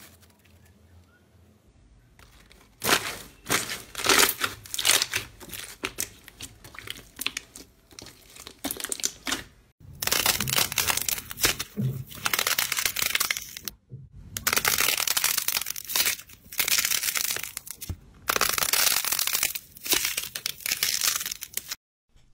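Slime being squeezed and worked by hand, giving crackling, crinkling and popping sounds. The sound comes in several long bursts with short gaps between them.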